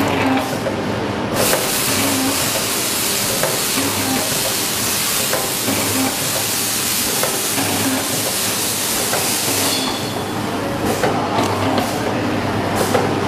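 A liquid (jelly) packaging machine running with a steady hum. A long, loud hiss starts about a second and a half in and stops near the end, after which the mechanism's regular clicking comes through again.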